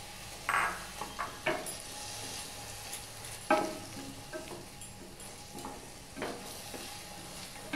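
Paneer cubes frying in a little oil in an Amway Queen stainless steel sauté pan with a faint, steady sizzle, while a wooden spatula stirs them and knocks and scrapes against the pan several times, the loudest knocks about half a second and three and a half seconds in.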